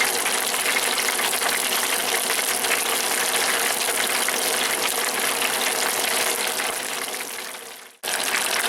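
Chicken pieces deep-frying in a deep fryer: a steady, dense sizzle and crackle of hot oil that fades about seven seconds in and cuts off just before the end.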